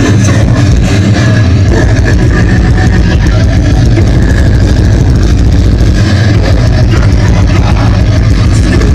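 A live death metal band heard loud through the stage PA, so loud that the phone microphone overloads and the music comes through as a dense, distorted, bass-heavy wall of sound with no clear notes.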